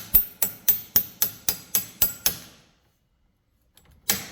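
Hammer tapping a part of a Stihl string trimmer into place: about nine quick, evenly spaced strikes at roughly four a second, then a pause and one more strike near the end.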